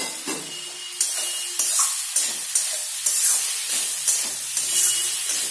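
Boiled, pre-fried potato pieces sizzling in hot oil and spice paste in a metal kadai, with a steady hiss. A spatula scrapes and turns them in short strokes about twice a second.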